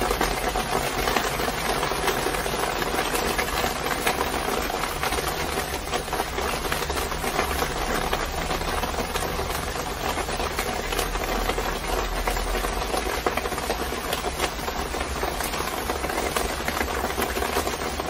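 Rain pattering on the cover of a succulent house hung on a balcony railing: a dense, steady patter of many drops.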